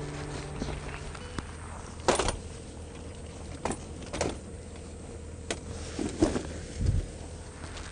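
Metal frame of a folding camping wagon clicking and clacking as it is pulled out of a car boot and opened out on the ground: a handful of short, sharp knocks spread through, and one dull low thump near the end.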